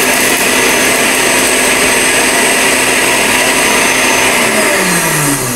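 Electric blender motor running at full speed, grinding scotch bonnet peppers in a small grinder jar. About four and a half seconds in it is switched off, and its whine falls in pitch as it spins down.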